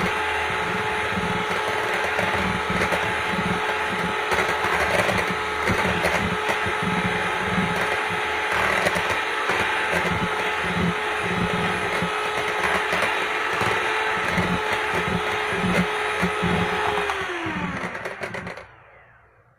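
Electric hand mixer running steadily, its beaters whisking egg whites and sugar into meringue with a clattering rhythm. Near the end it is switched off and the motor whine falls away and stops. The meringue is still only at the soft-peak stage.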